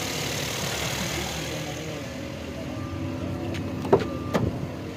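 Suzuki Alto's small three-cylinder petrol engine idling steadily, just started on a temporary jumper wire across its blown main glass fuse. Two sharp clicks come near the end.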